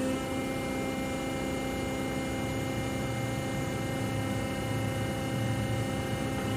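Large engine lathe, a 1974 Monarch Model 80 with a 50 hp main motor, running with a steady mechanical hum and low drone from its motor and headstock gearing.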